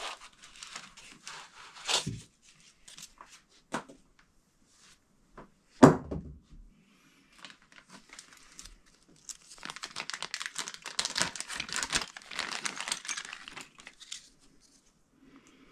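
Plastic packaging being handled: rustling and light knocks, one sharp knock about six seconds in, then several seconds of plastic crinkling.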